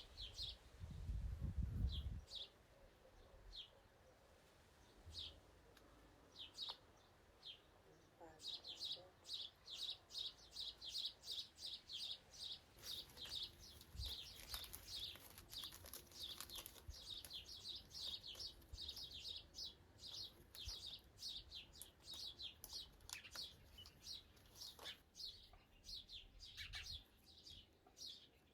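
Small birds chirping: short high notes, sparse at first, then from about eight seconds in a quick, steady run of two or three chirps a second. A brief low rumble sounds in the first two seconds.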